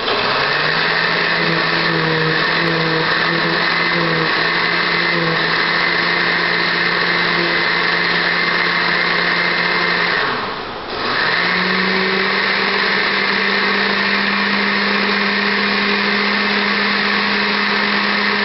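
Countertop blender running as it purees chopped aloe vera leaf with water and honey. About ten seconds in, it stops for under a second and restarts, running at a higher, steady pitch the second time.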